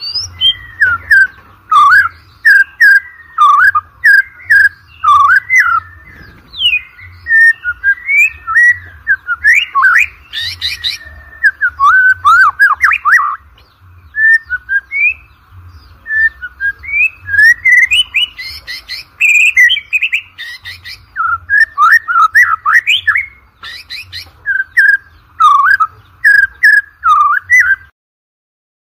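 White-rumped shama (murai batu) singing a fast, varied run of whistled phrases with gliding notes and sharp clicking notes, broken by short pauses. The song stops about a second before the end.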